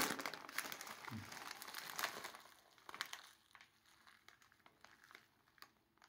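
Resealable plastic bag crinkling as its zip top is pulled open and the bag is handled, busiest over the first two and a half seconds, then only faint scattered rustles.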